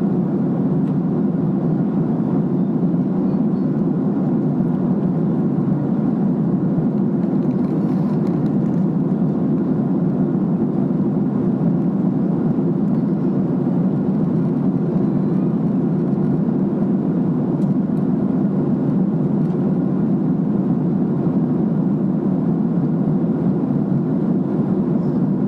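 Steady cabin drone of a Boeing 767 in flight, heard from inside the passenger cabin: engine and airflow noise, deep and even, unchanging throughout.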